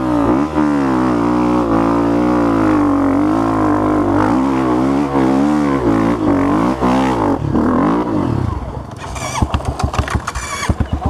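Honda CRF250F dirt bike's single-cylinder four-stroke engine revving up and down in repeated throttle blips. About eight seconds in, the revs fall away and a string of sharp knocks and clatters follows.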